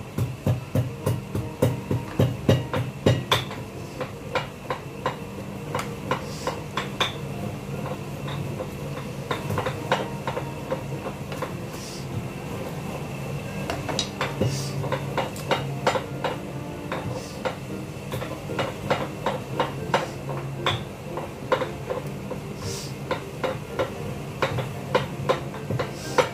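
Black pepper being crushed: a long run of sharp, repeated knocks, about three a second and loudest in the first few seconds.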